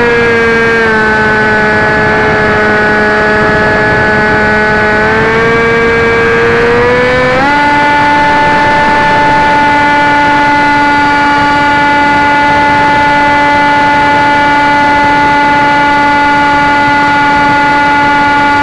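Electric motor and propeller of a Dynam Hawk Sky RC plane whining loudly, recorded by its own onboard camera. The pitch sits low at first, climbs from about five to seven seconds in, steps up sharply at about seven and a half seconds, then holds steady: throttle being changed in flight.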